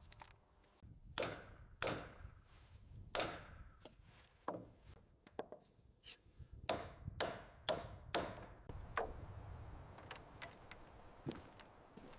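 A hand tool chopping wood: more than a dozen irregular blows, each with a brief ring after it, thinning out near the end.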